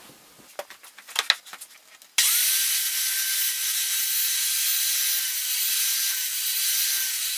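Corded circular saw, mounted blade-down, starting about two seconds in after a few light handling knocks and then running at a steady pitch while its blade skims the high spots off the end grain of a log as it is slid across. It stops near the end.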